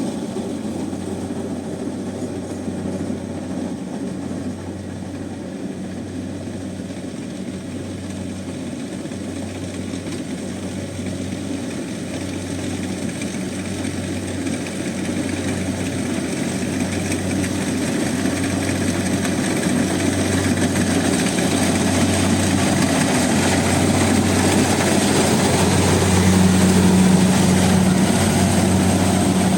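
Combine harvester's diesel engine and threshing machinery running steadily under load, with a low hum that pulses evenly and a thin high whine. It grows gradually louder over the second half, as if the machine is coming closer.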